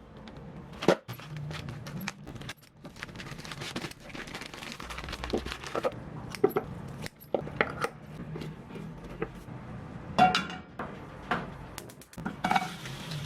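Kitchen utensils and dishes clinking and knocking: a string of separate sharp taps, a few of them ringing briefly like a spoon or plate striking glass or ceramic, the loudest about a second in and about ten seconds in.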